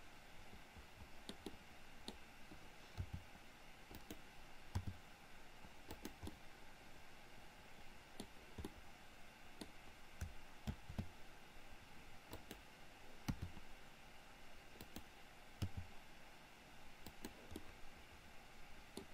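Faint, irregular clicks of a computer mouse and keyboard, about one every second or so, some with a dull low thump, over a faint steady background hiss.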